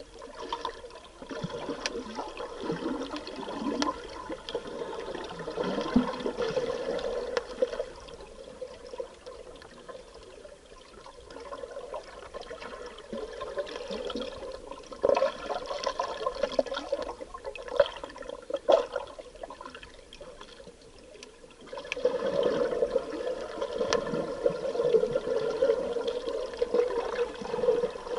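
Moving water splashing and gurgling, swelling and ebbing unevenly, with a few sharp splashes. A louder surge takes over for the last several seconds.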